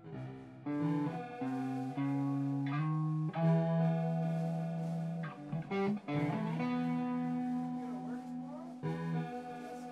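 Electric guitar played through effects in an improvised jam, picking a slow run of sustained notes and chords that change every half second to a second. A few notes slide in pitch near the end.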